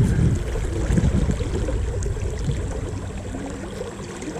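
Flowing river water making a steady, low rushing noise.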